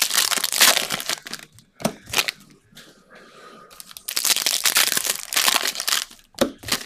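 Foil wrapper of a 2023 UFC Optic trading-card pack being torn open and crumpled. It crinkles for about a second and a half, goes quiet briefly, then crinkles again for about two seconds, with two sharp crackles near the end.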